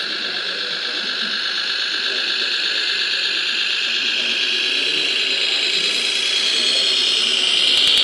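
Radio-controlled scale MAN truck driving on dirt, its electric drive motor and gearbox giving a steady high whine that grows louder as it comes closer.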